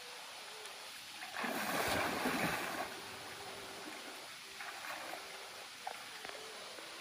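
A cast net landing on shallow water with a splash lasting about a second and a half, followed later by a few smaller splashes in the water.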